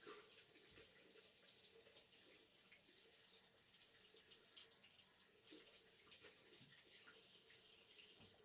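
Faint water from a tap running into a sink, a steady splashing hiss with small drips and gurgles.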